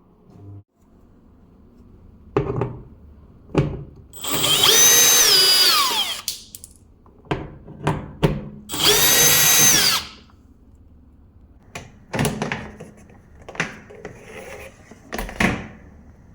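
Power drill running in two bursts of about two seconds each, its motor whine rising as it spins up and dropping as it stops, with clicks and knocks of handling between the bursts.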